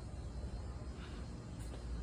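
Steady low hum of a building's air-conditioning system, with a couple of faint ticks about a second in.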